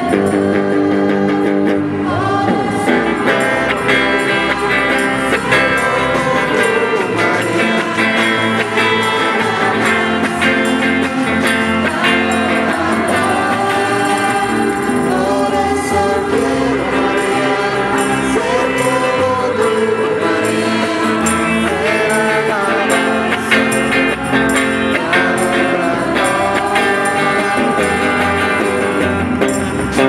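Live amplified worship music: electric guitars with a group of singers, female voices prominent, singing into microphones without a break.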